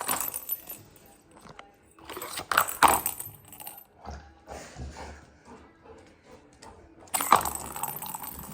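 Clattering and jingling of a plastic cat toy with balls in it as a dog paws and noses at it. It comes in three bouts of rattling clicks: at the start, around two and a half to three seconds in, and near the end.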